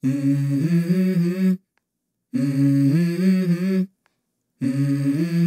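A short hummed vocal jingle: a voice hums the same brief melodic phrase three times, with a short silence after each. The third phrase starts near the end.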